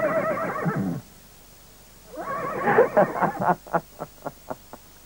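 A man laughing loudly: one long laugh, then after about a second's pause another that breaks into a string of short chuckles, about four a second, fading out.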